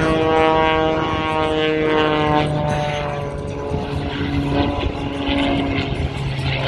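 Propeller-driven aerobatic plane diving, its engine and propeller note sliding down in pitch over the first few seconds, then holding a steadier low drone.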